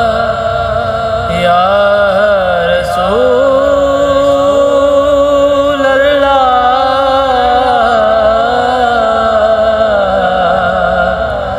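A man's voice chanting a naat with no instruments, in long, drawn-out, ornamented notes of a slow melody. The line steps up in pitch about three seconds in, holds there, then falls back near the end.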